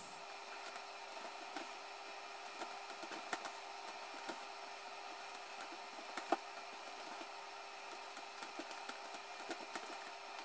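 Faint creaking and rustling of a woven seagrass basket and lid being pressed into place by hand, with one sharper click about six seconds in, over a steady background hum.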